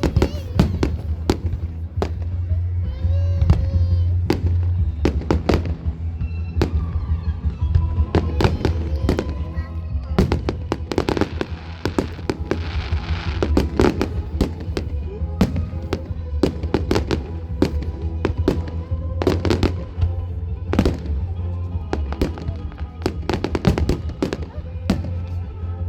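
Fireworks display: many sharp bangs going off in quick succession, with a burst of crackling about eleven seconds in, over music with a heavy steady bass.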